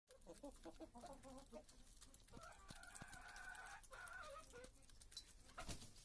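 Chickens quietly clucking as they feed on scattered grain: a quick run of short clucks, then a longer drawn-out call a little over two seconds in, with light clicks of beaks pecking at the ground.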